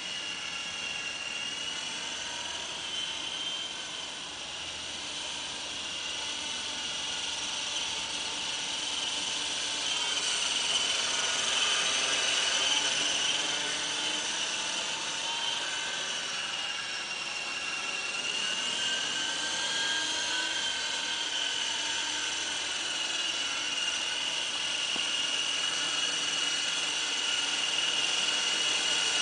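Model MD 530 helicopter in flight: a steady high-pitched whine from its drive and rotors, drifting slowly up and down in pitch and swelling in level as it manoeuvres.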